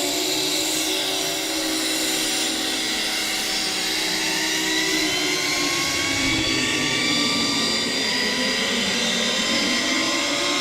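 Jet aircraft engines running, a loud steady rush with several whining tones that climb slowly in pitch.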